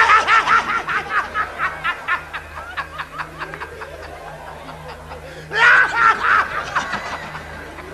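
A person laughing in a high voice: a quick run of 'ha-ha' pulses, about five a second, that trails off over a few seconds, then a second shorter bout about five and a half seconds in.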